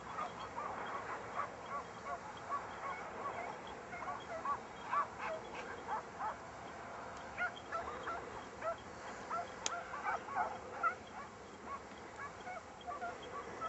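A pack of scent hounds giving tongue on a hare's trail: many short, arched baying cries from several dogs, overlapping in quick irregular succession.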